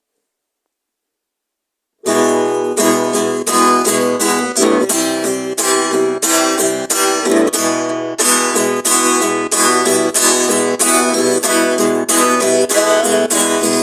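Silence, then about two seconds in a song begins abruptly with guitar chords strummed in a steady, even rhythm.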